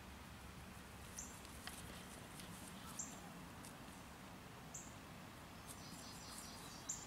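Faint outdoor ambience with a short, high bird chirp that repeats about every one and a half to two seconds, coming a little faster near the end.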